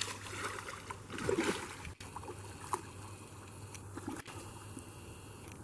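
Faint trickle of moving creek water, with two sharp handling clicks, one about two seconds in and one about four seconds in.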